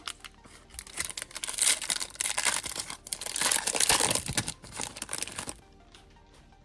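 Foil wrapper of a Topps baseball card retail pack crinkling and tearing as it is ripped open by hand, in a run of uneven crackles that stops about a second before the end.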